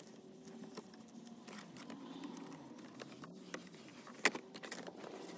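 A wet wipe rubbing over a car's plastic dashboard and stereo buttons, with soft scuffing and scattered small clicks and rattles, and one sharper click about four seconds in.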